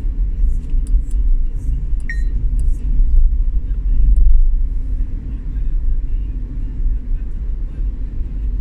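Steady low rumble of a moving vehicle, road and engine noise on a wet street, with a few faint ticks near the start.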